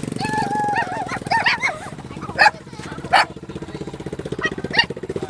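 A small engine running steadily with a fast pulsing hum. Over it come high, wavering calls, then several short sharp squeals.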